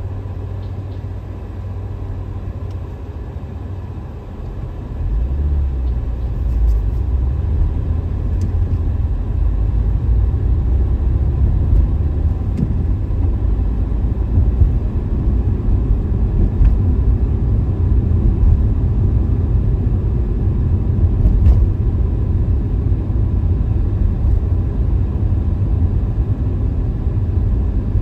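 Car driving on a city street: a steady low rumble of engine and tyres on the road, growing louder about five seconds in as the car picks up speed.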